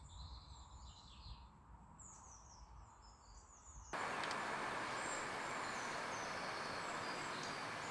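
Faint chirping birdsong, then about four seconds in a sudden cut to a louder, steady outdoor noise, an even hiss with faint bird calls above it.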